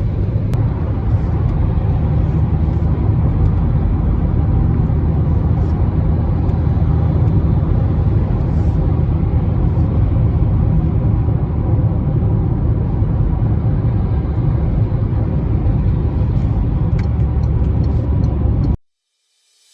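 Steady in-cabin road and engine noise of a Citroën Berlingo van driving at speed, with a heavy low drone. It cuts off suddenly near the end.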